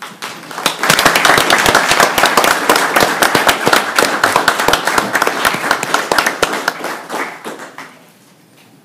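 A room full of people applauding: dense clapping that swells within the first second and dies away about eight seconds in.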